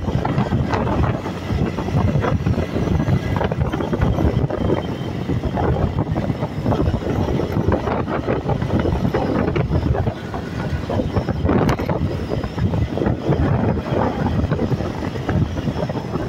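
Single-cylinder Honda CG 150 Fan motorcycle engine running steadily at cruising speed, mixed with the rush of wind over the bike.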